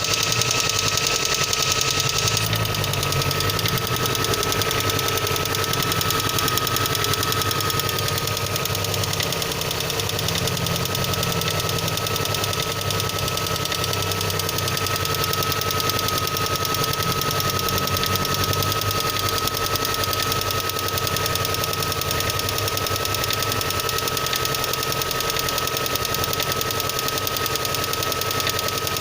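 VAZ-2112 engine running cold with a rapid, steady knocking from the engine, the cold-engine knock whose cause is in question.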